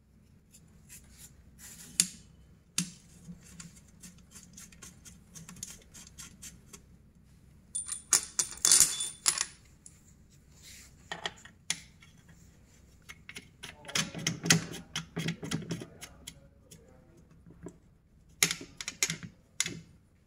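Light-fixture hardware being handled: irregular clicks, rattles and knocks, with a bright metallic clink that rings briefly about nine seconds in and a cluster of heavier knocks around fourteen to sixteen seconds.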